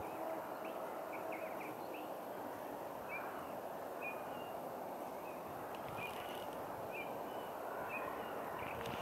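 A small bird giving short, high chirps, one every half second to a second, over a steady outdoor hiss.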